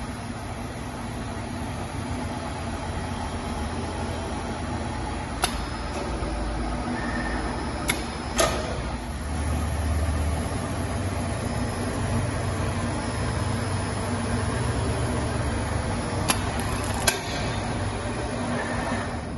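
Fabric bias-strip cutting machine running with a steady motor hum, with a few sharp clicks scattered through.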